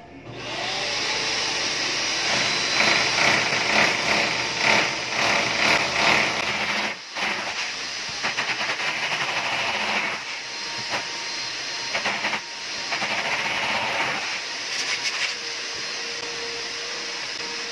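Corded electric drill boring into a cement wall to fix a blinds bracket, its grinding noise surging and easing in spurts, with a short break about seven seconds in.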